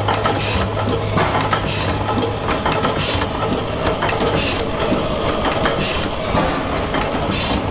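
Antique stationary gas engines running together, a steady drone under an irregular stream of clicks and thumps.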